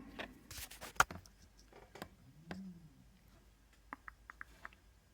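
Faint clicks and taps from handling the throttle's control buttons and electronics, with one sharp click about a second in and a quick run of small ticks near the end; a brief low murmur about halfway. No locomotive sound plays, the volume having been turned down too far.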